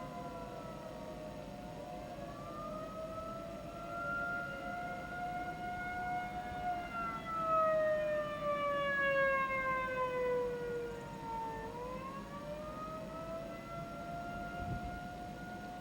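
Civil defense warning sirens sounding during a test, at least two at different pitches overlapping. One holds a fairly steady tone. The other slides slowly down in pitch from about six seconds in to near twelve, then climbs back up again.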